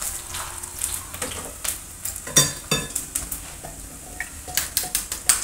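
Onions sizzling as they fry in a pan, under many sharp clicks and taps from hard-boiled eggs being cracked and shelled. Two short ringing clinks come near the middle.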